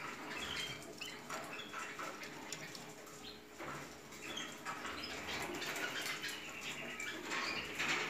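Canaries in a wire cage giving short, scattered chirps, with light fluttering of wings.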